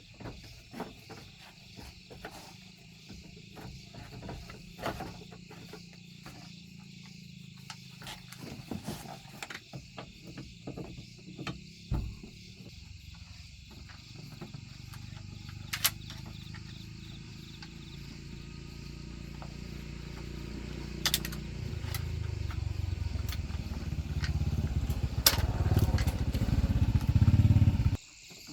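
A motor running, growing steadily louder over the second half and cutting off abruptly just before the end, over scattered clicks and knocks of metal work. Crickets chirp steadily behind.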